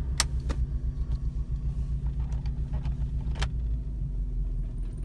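A 1999 Toyota 4Runner's four-cylinder engine idling roughly in neutral, an uneven, pulsing low rumble. A few sharp clicks sound over it, the first two close together near the start and one more past the middle.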